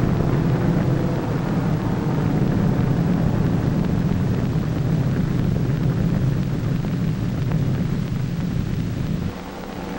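Steady low drone of aircraft engines, which drops away about nine seconds in.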